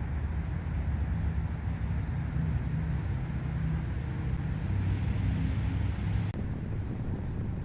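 Wind rumbling on the microphone outdoors, a steady low buffeting noise that changes abruptly about six seconds in.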